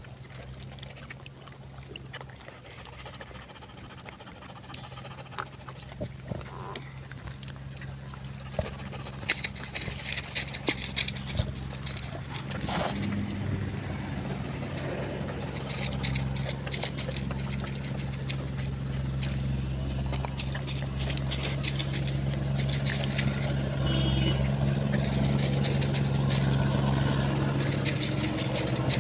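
Close-up eating sounds, chewing and lip smacking with sharp clicks, densest a third of the way in. Under them a steady engine hum grows louder from about halfway through.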